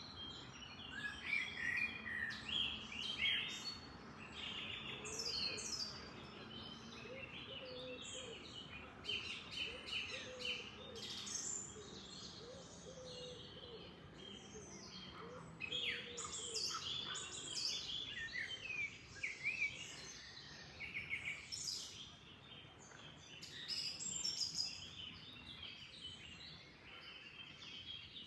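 Several songbirds chirping and singing, their calls overlapping one after another, over a steady background hiss of flowing water.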